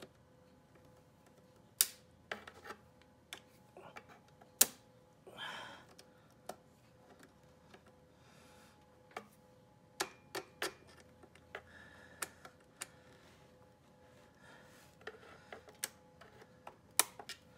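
Irregular sharp metal clicks and short scrapes as a screwdriver tip works a steel retaining ring into the fuel pressure regulator housing, over a faint steady hum.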